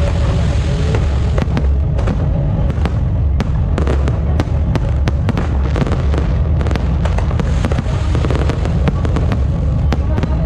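Continuous barrage of fireworks: many rapid, overlapping sharp bangs and crackles over a steady low rumble.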